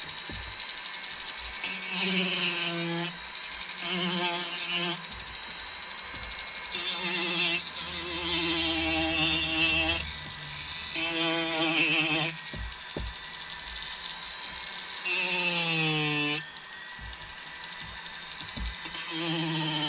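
High-speed rotary carving tool running with a steady high whine, its bur grinding into a saw-whet owl carving in about seven strokes of one to two seconds each; the motor's pitch dips and recovers as the bur bites.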